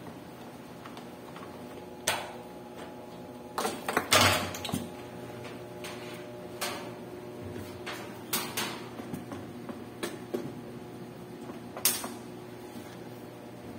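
Scattered knocks and clatters of hands handling machine parts during work on a washing machine, over a steady background hum. The loudest cluster comes about four seconds in, with another sharp knock near the end.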